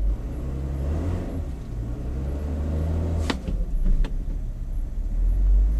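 INEOS Grenadier's turbocharged BMW inline-six running at low revs, its engine speed rising and falling a little, with two light knocks around the middle.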